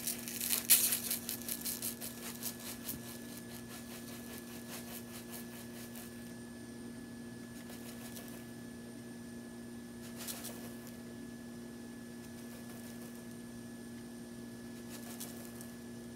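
Dry cream of rice granules poured from a cardboard box into a plastic container: a dense, crackly rustle for the first two to three seconds, then only a brief rustle about ten seconds in, over a steady low hum.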